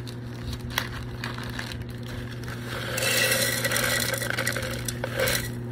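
Plastic zip-top bag opened with a few small clicks and crinkles, then granola poured from it into a glass cup: a louder crunchy, rattling rustle from about three seconds in that lasts about a second and a half.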